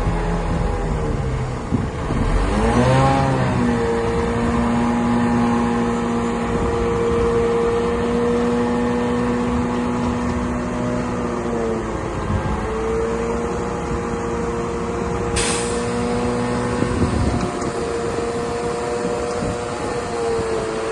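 Diesel engine of a DH17 C2 LGP bulldozer running steadily under working load while pushing soil. Its pitch dips and recovers several times as the load changes, and a brief hiss comes about fifteen seconds in.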